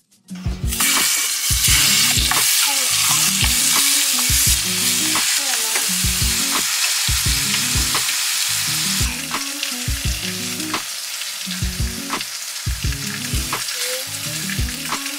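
Butter and breakfast sausage patties sizzling in a nonstick frying pan: a steady frying hiss that starts just under a second in and eases slightly about nine seconds in. Background music with a steady beat runs quietly underneath.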